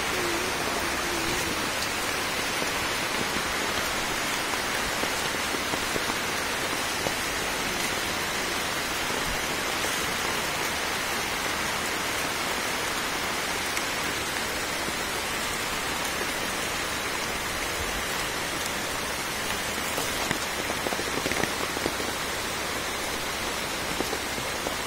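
Heavy rain pouring steadily onto dense jungle foliage, an even hiss throughout.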